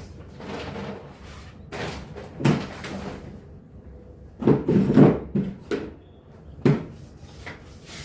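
Kitchen storage being handled as groceries are put away: doors opening and shutting among knocks and rustles of packages, with a loud knock about two and a half seconds in, a cluster around five seconds in and another sharp knock near seven seconds.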